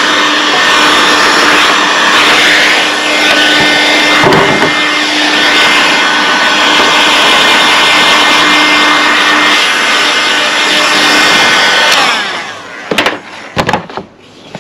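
Heat gun's fan motor running steadily, blowing a strong air stream to clear dust from the cracks of a wooden post. About twelve seconds in it is switched off and runs down, followed by a few sharp knocks as it is set down.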